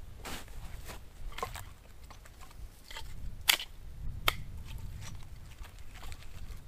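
Dry pine branches being handled and broken for kindling, with scattered crunches and two sharp cracks of snapping wood near the middle.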